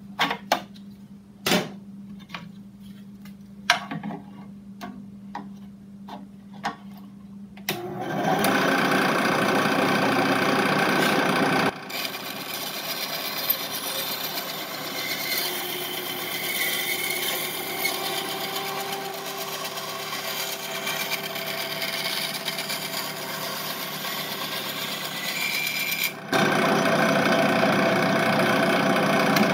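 A bench-top power saw cutting through the plastic handle and magazine well of a Nerf Rival Apollo. The first few seconds hold scattered clicks and knocks of the parts being handled. About eight seconds in, the saw starts and runs steadily to the end, its sound shifting twice as the cut goes on.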